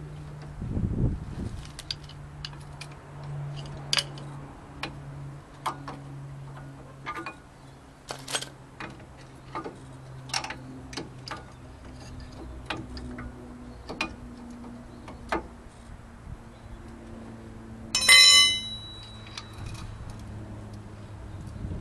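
Disc brake caliper and pads being worked by hand over a brake rotor: scattered light metal clicks and knocks, with one loud ringing metallic clink about eighteen seconds in. A faint steady low hum runs underneath.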